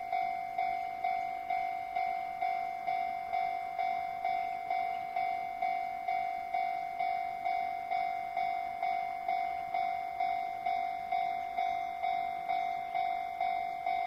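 Japanese level-crossing warning bell ringing steadily, one clanging tone struck about twice a second, warning of an approaching train.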